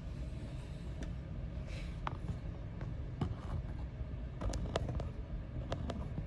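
Steady low rumble of a fume hood's airflow and the Bunsen burner flame heating the beaker, with a few sharp clicks scattered through.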